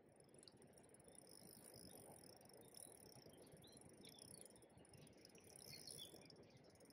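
Faint riverside ambience: a steady, high insect trill with a few short bird chirps, over a low, even murmur of flowing river water.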